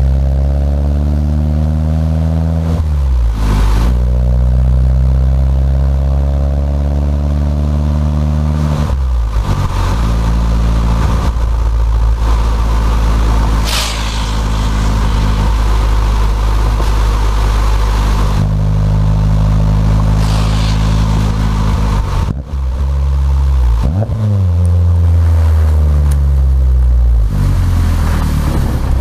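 Fiat 500 Abarth's turbocharged 1.4-litre four-cylinder running at low revs, around 2,000 rpm, through a catless downpipe and Ragazzon cat-back exhaust with twin mufflers, heard from inside the cabin while driving. The engine note breaks off and comes back at a new pitch about 3, 9 and 23 seconds in.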